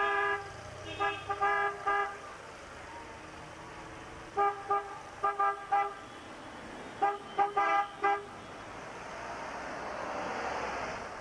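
Car horns tooting in short beeps, a few at a time in several quick groups. Near the end comes the rising rush of a car driving past close by.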